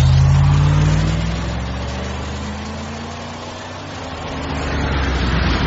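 Car engine accelerating, its pitch rising over the first couple of seconds. The engine sound then drops in level through the middle and grows louder again near the end.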